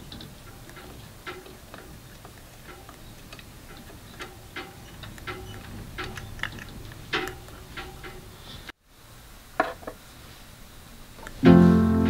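Irregular light clicks and ticks, roughly one or two a second, from hands working the front burr cover and thumbscrews of a Kalita Next G electric coffee grinder. Background music with piano and guitar comes in loudly near the end.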